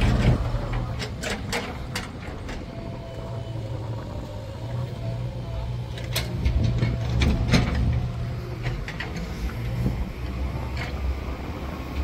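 JCB 3DX backhoe loader's diesel engine running steadily, with a series of sharp knocks and clatter from the working machine.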